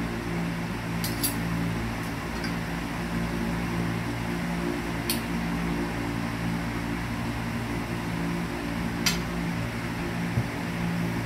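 A metal spoon and fork clink and scrape against a ceramic plate a few times, with the sharp clinks seconds apart, as rice is scooped up. Under it runs a steady low hum.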